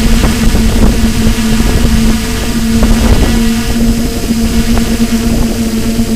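Quadcopter motors and propellers humming steadily as heard from the onboard camera, one held pitch with a fainter overtone above it, over a low rumble of wind on the microphone.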